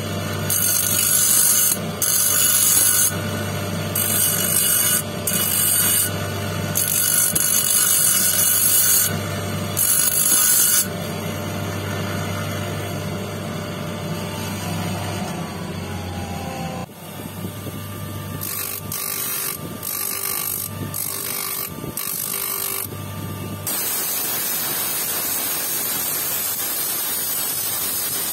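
A motor-driven lapidary wheel runs with a low hum while a quartz stone on a dop stick is pressed to it again and again, each touch giving a short gritty hiss. In the last few seconds there is one even, unbroken hiss of the stone held on a flat spinning disc.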